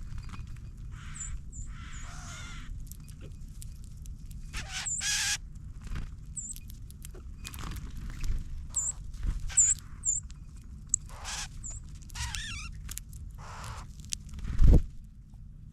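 Wild birds calling at a winter ground feeder: many short, sharp, high chip notes with several harsher, raspy calls among them. A single dull thud near the end.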